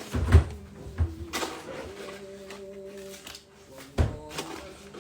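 A few knocks and clunks of kitchen things being handled and set down while batter ingredients are measured out. The loudest knock comes about a third of a second in, with more about a second in and near the end.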